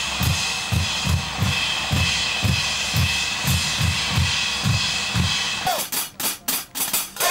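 A band's drums playing live: a bass drum beats about four times a second under a steady wash of cymbals and snare. About six seconds in the bass drum drops out, and sharp cymbal strikes carry on alone at an even pace.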